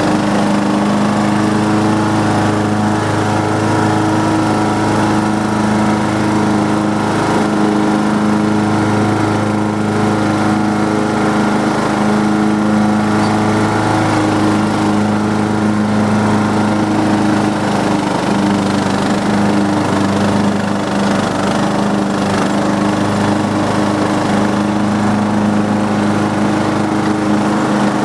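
Riding lawn mower's Briggs & Stratton engine running steadily while cutting grass.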